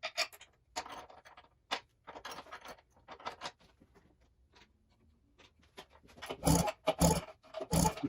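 Hand-work noises on a small outboard's ignition parts: a string of short clicks and scrapes of tools and metal parts being handled, with three louder knocks near the end.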